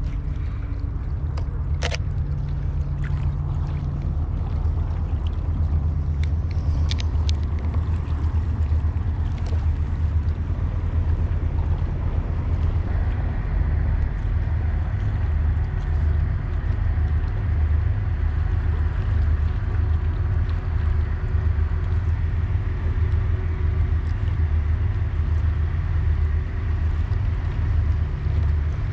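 Wind buffeting the microphone, a steady, fluttering low rumble, with a few sharp clicks in the first several seconds.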